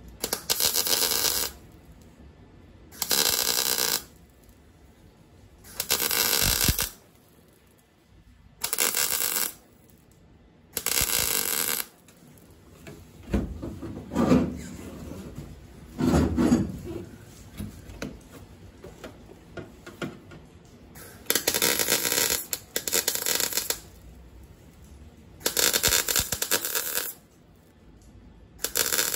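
Wire-feed (MIG) welder laying tack welds on thin sheet steel with 0.025-inch wire: the arc sounds in short spells of about a second each, about nine in all, with a longer gap near the middle.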